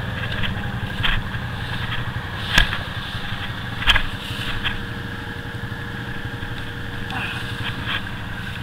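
ATV engine idling steadily, with a couple of sharp knocks near the middle.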